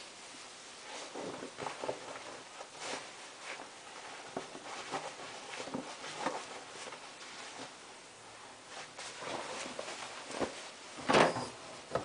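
Scattered faint rustles, knocks and movements of someone handling laundry, ending in louder rustling as denim jeans are pushed into a front-loading washing machine's drum.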